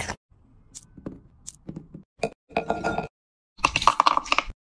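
Scattered light knocks and clinks on glass, then a stainless steel muddler crushing green grapes in a glass tumbler: a dense run of rapid crackling clicks for about a second, near the end.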